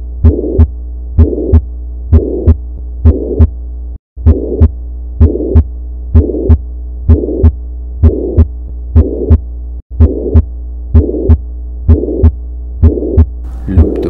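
Auscultation recording of an animal's heart with a systolic murmur: each regular lub-dub pair of heart sounds has a whooshing murmur filling the gap between the first and second sound ('boomfta'). The recording runs over a steady low hum and cuts out briefly about 4 and 10 seconds in as it loops and restarts.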